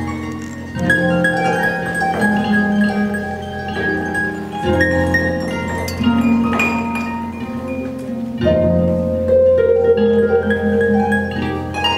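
Lyon and Healy concert grand pedal harp played solo. Plucked notes ring out over long, low sustained tones, with fresh notes and chords struck every couple of seconds.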